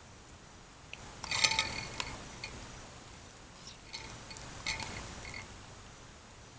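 Utensil scraping and clinking against a stainless steel Stanley Adventure cook pot, with a ringing metallic scrape about a second in and two shorter ones near four and five seconds.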